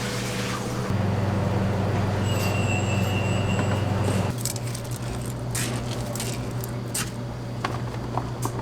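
Steady low machine hum, louder for about three seconds with a faint high whine over it, then dropping back, with light clicks and knocks after.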